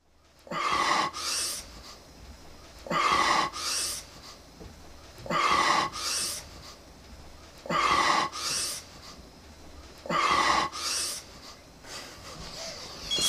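A person snoring in a steady rhythm, five snores about two and a half seconds apart, each a rasping breath in followed by a breath out. Right at the end a telephone starts ringing.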